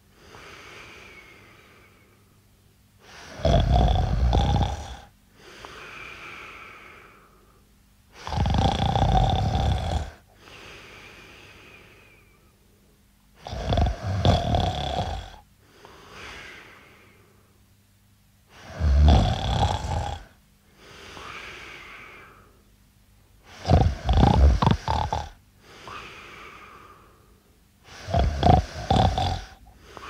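A man snoring in a slow, regular rhythm: a loud snore about every five seconds, six in all, with a softer breath between each snore.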